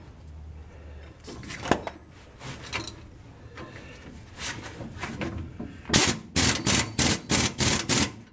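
Metal hand-tool clinks and knocks as a nut is started on the truck's front leaf spring mount, ending in a quick run of about eight sharp clacks.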